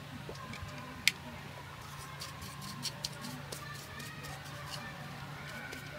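Scattered sharp clicks, the loudest about a second in and a few smaller ones later, over a steady low hum.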